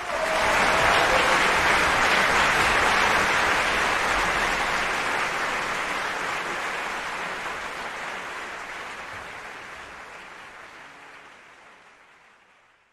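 Large concert audience applauding, starting abruptly and then fading out gradually to silence over the last several seconds.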